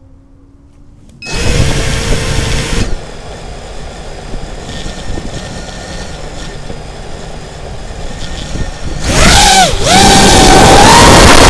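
Brushless motors of a 5-inch FPV racing quadcopter (Xnova 2204 2600kv) heard through its onboard camera: they start suddenly about a second in and run steadily at low throttle, then about nine seconds in the whine sweeps up and down in pitch and the throttle is opened for takeoff, turning into a loud, even rush of motors, props and wind.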